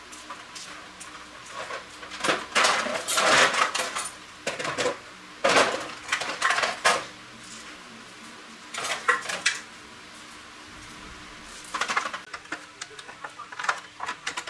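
Metal parts and tools clinking and clattering against each other in several irregular clusters of sharp knocks, as during hands-on motorbike repair work.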